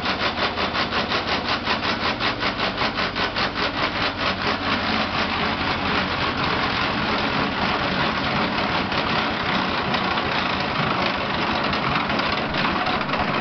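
Bakery production machinery running with a regular pulse of about four strokes a second, which speeds up about halfway through into a fast, even mechanical rattle.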